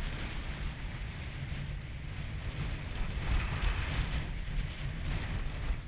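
Strong gusty wind rumbling on the microphone, with the hiss of wind-driven chop; a gust swells about three seconds in.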